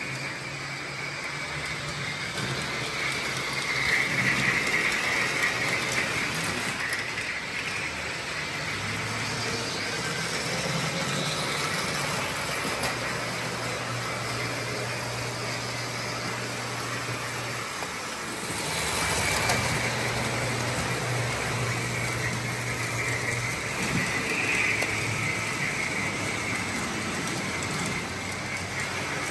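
O-gauge model trains running on three-rail metal track: a steady rolling rattle of wheels and electric motors, with a low electric hum that comes and goes.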